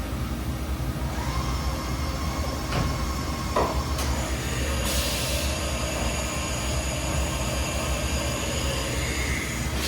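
Steady machine-shop hum with a few sharp clicks, and a motor whine that rises and then falls about halfway through.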